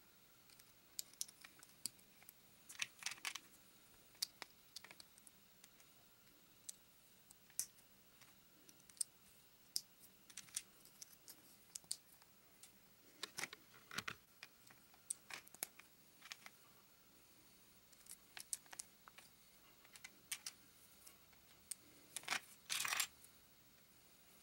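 Plastic LEGO bricks and plates clicking as they are handled and pressed together: faint, irregular clicks, with a short denser rattle of clicks near the end.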